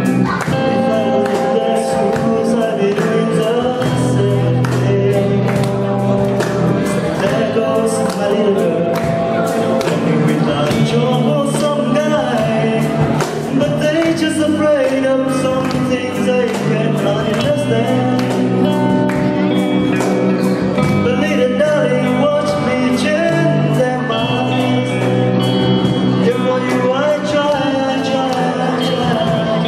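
A song playing: singing over a band with a steady drum beat.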